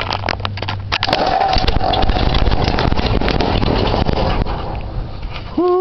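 Old flathead engine being started by jumping the starter with a heavy wire: sharp crackling clicks over a steady hum, then about a second in the engine catches and runs with a steady rumble.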